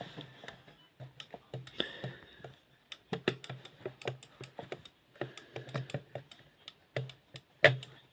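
Rapid, irregular clicking from a Hetronic crane radio remote control being tested on the bench, with a low hum that switches on and off in short stretches along with the clicks. The loudest click comes near the end.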